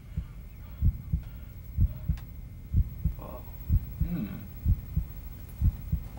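Heartbeat sound effect: a deep double thump, lub-dub, repeating steadily about once a second.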